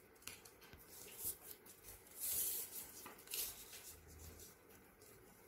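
Light green craft paper being folded back and forth into an accordion fan and creased by hand: short, faint papery rustles, the longest about two seconds in.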